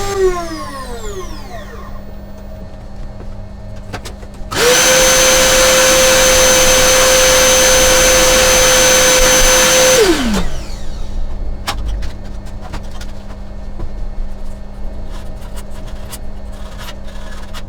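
CNC router spindle winding down, then spinning back up about four and a half seconds in to run at a steady high whine for about five seconds before winding down again. A steady low hum runs underneath, with scattered light clicks near the end.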